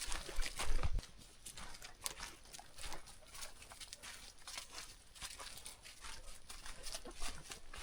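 Steps on a rocky trail: irregular clicks and scuffs, with a low rumble in the first second.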